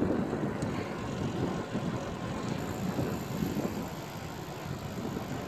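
Wind noise on the microphone and street traffic while riding a bicycle along a city road, an uneven rushing without speech.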